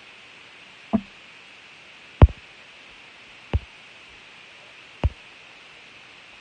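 Four dull knocks, a little over a second apart, over a faint steady hiss.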